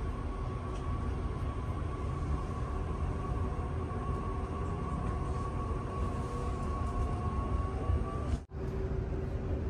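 Electric commuter train running, heard from inside the carriage: a steady rumble with a high motor whine over it. The sound drops out for an instant about eight and a half seconds in.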